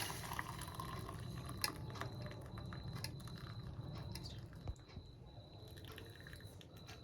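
Hot kashaya (herbal decoction) being poured through a strainer into a cup: faint trickling and dripping with scattered light clicks of the strainer and vessel.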